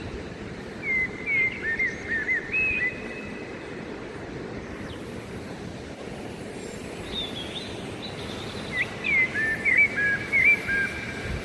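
Steady rush of the Todtnau waterfall, with a songbird singing two short whistled phrases, about a second in and again near the end.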